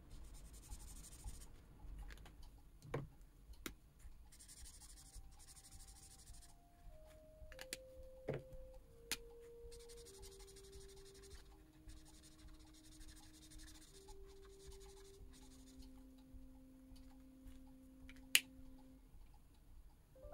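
Faint scratching of a drawing tool on paper in several stretches of strokes, with a few light clicks and one sharp click near the end. Soft background notes step slowly downward in pitch underneath.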